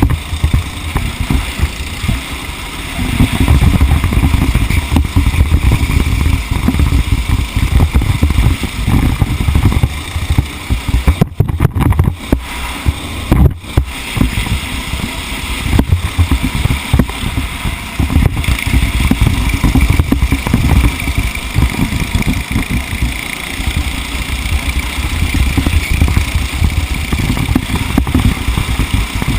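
A racing vehicle's engine running under way, heard with heavy wind rumble on the microphone, the sound dropping out briefly twice near the middle.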